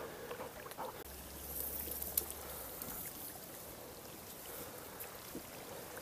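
Faint sloshing and stirring of water, with a few light clicks and a brief hiss about two seconds in.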